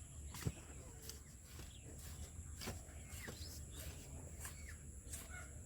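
Rural outdoor ambience: a steady high insect drone, with scattered sharp clicks and taps and a few short bird chirps.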